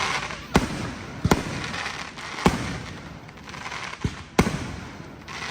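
Fireworks going off: about five sharp bangs at uneven intervals, two of them close together near the end.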